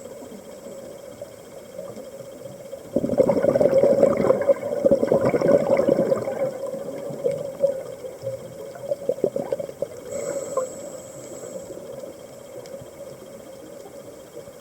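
Scuba diver's exhaled air bubbling and crackling out of the regulator for about four seconds, starting about three seconds in, with a shorter, fainter burst around nine seconds in. A steady low hum runs underneath.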